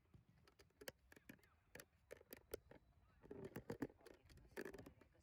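Faint scattered clicks and taps, with murmured voices in the background from about three seconds in.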